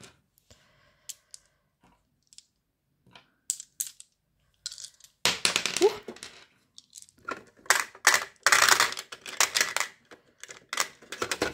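Dice clicking and clattering as they are dropped into a storage box compartment: scattered single clicks, then two longer rattles about five seconds and eight seconds in as handfuls go in.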